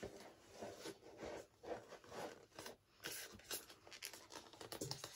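Faint, irregular rustling and scraping of objects being handled and shifted about.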